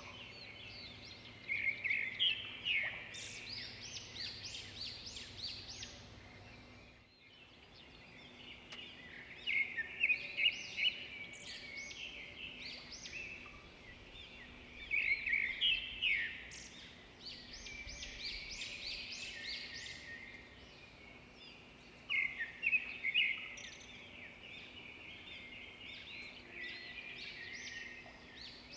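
Several small birds chirping: rapid high chirps run throughout, rising into louder bursts of a second or two every several seconds. The sound cuts out briefly about seven seconds in.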